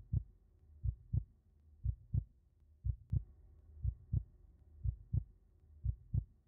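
Heartbeat sound effect on a horror soundtrack: a low double thump, lub-dub, about once a second and steady.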